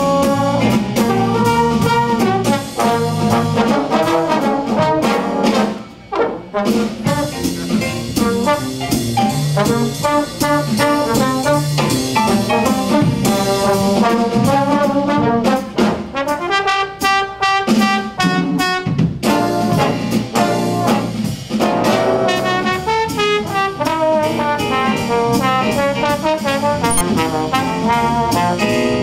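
Jazz trombone ensemble with drums playing a tune, several trombones sounding together, with a brief break about six seconds in.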